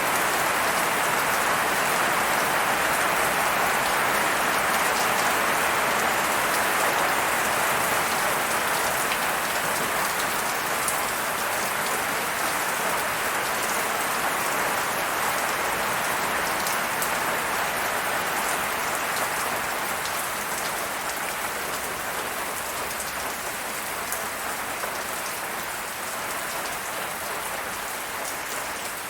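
Steady rain falling, an even hiss with scattered drop ticks, easing off a little over the last third.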